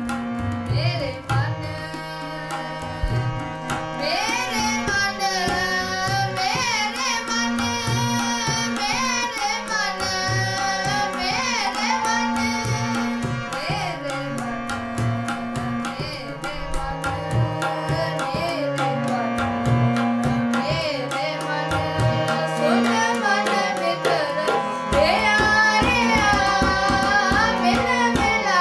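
Harmonium holding steady chords under a boy singing a Sikh shabad (devotional hymn) in wavering melodic phrases, over a steady tabla rhythm.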